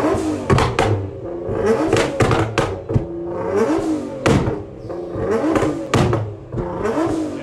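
Nissan GT-R R35's twin-turbo V6 revved repeatedly in short blips, each rising and falling, with sharp pops and bangs from the exhaust on the overrun; a burst of bangs about six seconds in comes with flames from the tailpipes.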